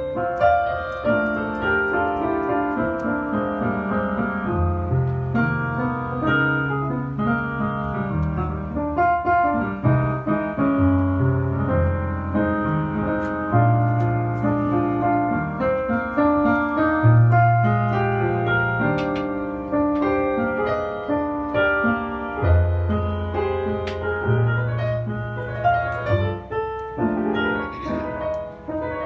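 Roland digital stage piano played solo, a melody and chords over held bass notes.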